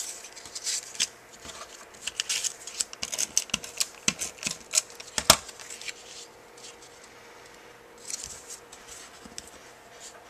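Cardstock and paper card pieces being handled and set down on a cutting mat: a busy run of short crackly clicks and rustles, with one sharp tap about halfway through, then quieter handling with a few more rustles near the end.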